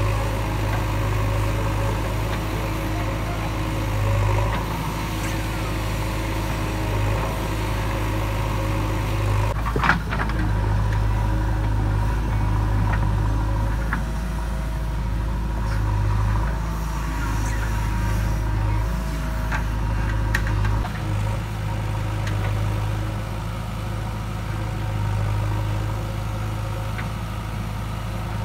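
JCB 3DX backhoe loader's four-cylinder diesel engine running steadily while the backhoe arm digs and levels earth, its low hum coming and going in strength. A single sharp knock sounds about ten seconds in.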